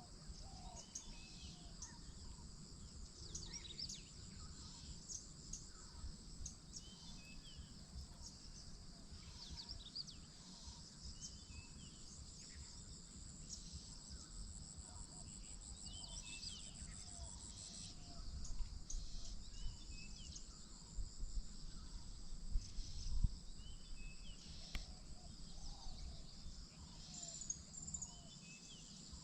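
Morning nature ambience: a steady high drone of insects such as crickets, with scattered short bird chirps and calls throughout. A low rumble swells for a few seconds past the middle.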